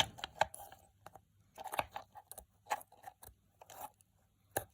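Small hard-plastic clicks and knocks as a Traxxas 3340 ESC cooling fan is handled and its prongs are pushed and snapped onto the ESC, with a sharper click right at the start and another near the end.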